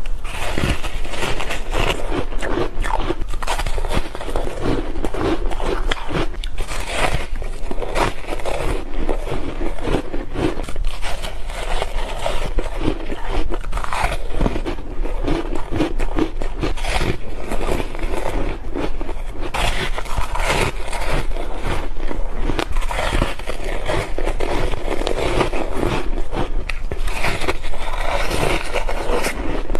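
Soft ice being bitten and chewed close to a clip-on microphone, with continuous irregular crunching and crackling as it breaks between the teeth.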